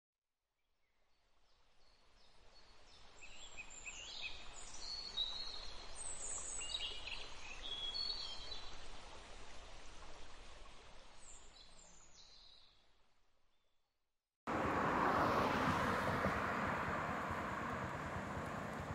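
Birds chirping and whistling over a soft outdoor hiss, fading in and then fading out. About two-thirds of the way through it cuts suddenly to a louder, steady rush of road traffic noise.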